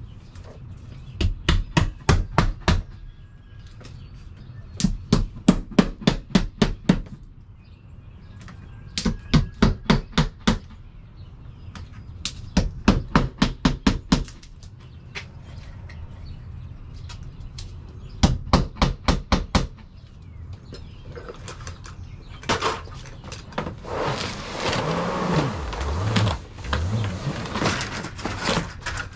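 A claw hammer driving nails into a house wall: five quick runs of about six to eight sharp blows each, with pauses of a few seconds between. Near the end the hammering gives way to rustling and scraping as a long vinyl siding piece is lifted and handled.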